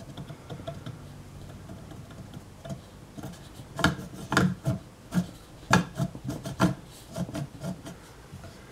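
Saab 9000 AC condenser fan blade turned by hand inside its mounting ring, scraping and then clicking sharply against the ring about ten times from about three seconds in: the blade is hitting the ring and does not clear it.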